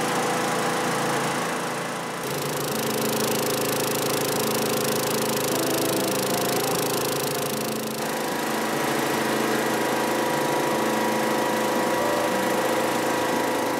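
Small single-cylinder gasoline engine driving a portable generator, running steadily while the generator carries house circuits through a manual transfer switch.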